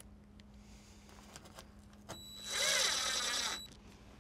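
DeWalt cordless drill driving a screw through a hull strip plank into the frame: a click, then the motor runs with a high whine for about a second and a half before stopping.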